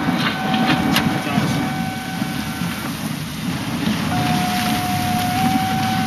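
Thunderstorm: heavy rain and wind with a low rumble, dense and loud throughout, with a few sharp rain clicks in the first second. A thin steady tone sounds over it, dropping out about three seconds in and returning a second later.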